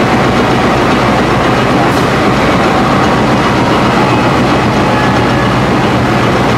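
CC 204 diesel-electric locomotive running with a loud, steady engine drone.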